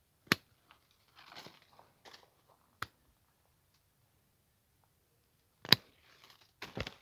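Hand pruning shears snapping shut through quince branches: sharp snaps about a third of a second in and near three seconds, and the loudest near six seconds, with crackling and rustling of twigs and dry leaf litter between them.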